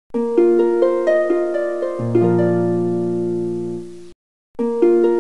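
Channel intro jingle: a quick run of short, bright notes over a held low chord that dies away about four seconds in; after a brief gap the same tune starts again near the end.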